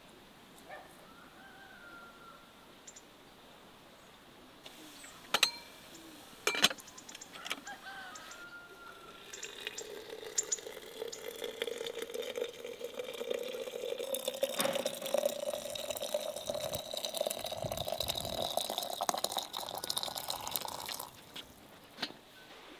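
Water poured into a glass jar of sliced fruit, running steadily with a pitch that rises as the jar fills, then cut off suddenly near the end. Before the pour there are two sharp knocks a little over a second apart.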